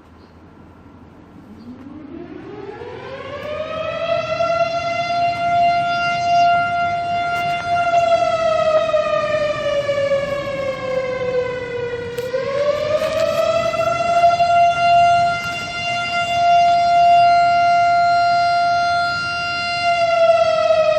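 Civil-defence air raid siren winding up from a low growl to a steady high wail over about three seconds. Its pitch sags slowly about halfway through, climbs back to the wail, then starts to wind down near the end.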